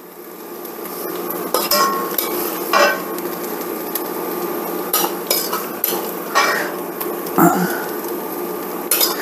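A utensil scraping and clinking against a pan as cooked chicken pieces are lifted out onto a plate, with a handful of irregular clinks over a steady frying sizzle.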